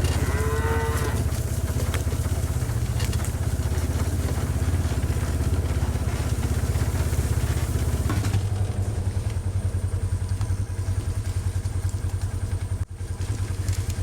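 A small off-road vehicle's engine running steadily with a low, pulsing drone, its sound shifting about eight seconds in. A short pitched call is heard right at the start.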